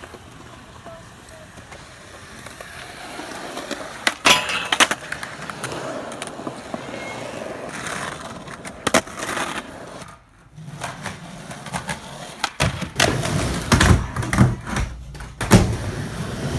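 Skateboard wheels rolling on concrete with sharp clacks of the board popping and landing. Near the end, a heavier rumble of wheels on a wooden mini ramp, with repeated loud knocks of the board.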